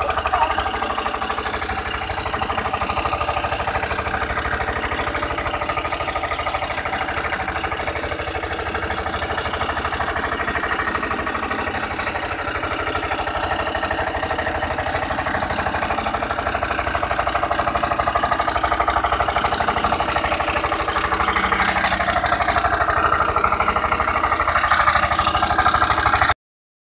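Bitumen emulsion sprayer with compressor running steadily while spraying through a hand lance, its engine pulse under a constant spray hiss. It gets a little louder about two-thirds through and cuts off suddenly near the end.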